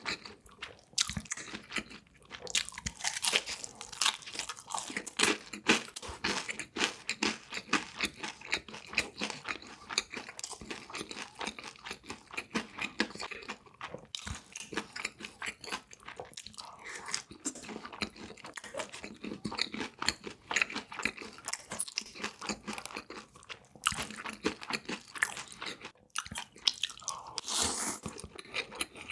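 Close-miked chewing and crunching of crisp fried food, many crackly bites and chews in quick, irregular succession.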